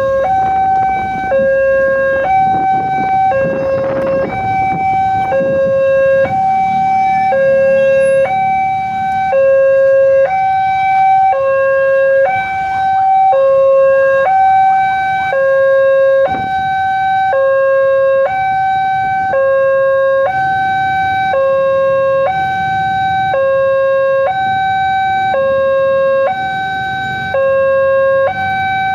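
Railway level-crossing warning alarm sounding its electronic two-tone signal, a lower and a higher tone alternating evenly and without pause, warning that a train is approaching. Low road-traffic rumble underneath.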